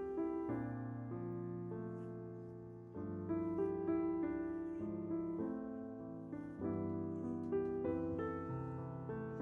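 Soft background piano music: slow, sustained chords changing every second or two.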